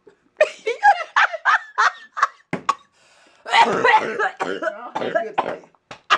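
Laughing in a quick run of short pitched breaths, then a single sharp smack, then a longer stretch of breathy laughing and coughing.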